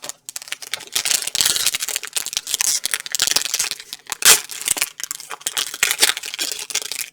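Trading card pack wrapper being torn open and crinkled, with a dense crackle of small clicks and one sharp louder crack about four seconds in.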